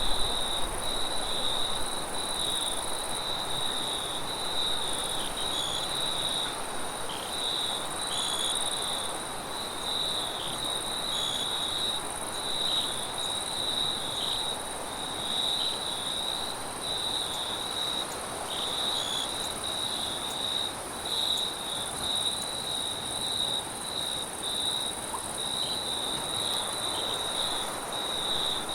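Crickets trilling steadily in a night chorus, one high trill with a fainter, even higher insect sound above it, over a soft, even hiss of wind.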